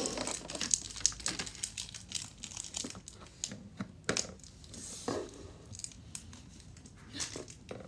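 Foil wrapper of a Pokémon trading card booster pack crinkling and tearing as it is opened. There is a dense crackle at first, then scattered sharp crinkles with a few louder bursts.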